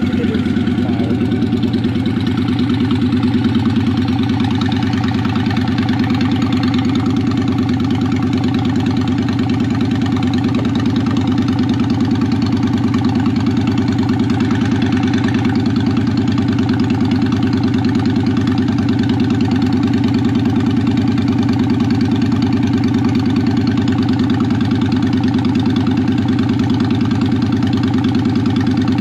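Honda Shadow Ace's V-twin engine idling steadily soon after a cold start, through Vance & Hines Cruzer pipes with the baffles taken out, giving an open, unbaffled exhaust note.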